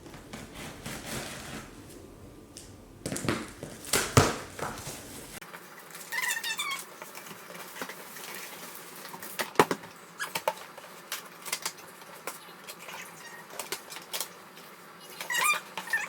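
Unboxing sounds from a formula-making machine's box and packaging being handled: scattered knocks and clicks with a few louder thumps, and a few brief squeaks.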